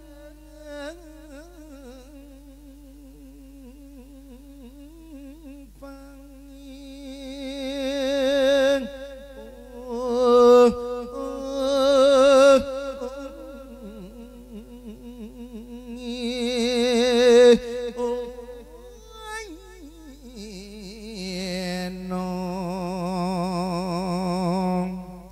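A monk's voice singing a lae, a melodic Thai Buddhist sermon chant, into a microphone. He draws out wordless held notes with heavy vibrato in long swelling phrases, then drops to a lower held note near the end.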